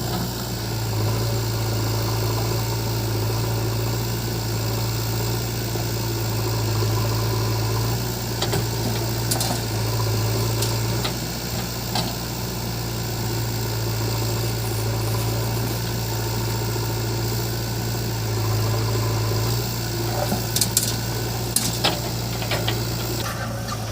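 Heavy diesel engine running steadily, its low hum swelling and easing in places, with a few sharp knocks near the end.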